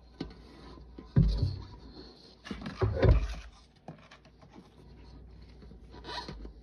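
Gloved hand kneading and pressing a thick Lime Ajax cleanser paste in a stainless steel bowl: soft crumbly squishing and scraping of paste against the metal, with two louder knocks about one and three seconds in as the lump is pressed down.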